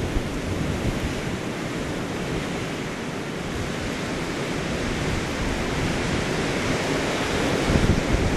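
Blizzard wind blowing steadily and buffeting the microphone, with a stronger gust near the end.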